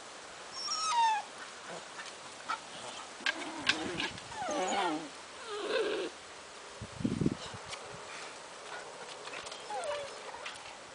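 Small black Scottish terrier giving several short whining yelps, most falling in pitch, at intervals, with a short thump about seven seconds in.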